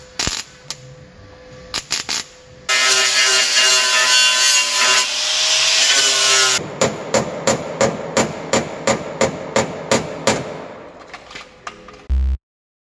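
Short crackling bursts of welding on a car body's sill seam, then a DeWalt angle grinder spinning and grinding the fresh welds for about four seconds, then a steady run of about a dozen hammer strikes on the metal, roughly two a second. Electronic music starts near the end.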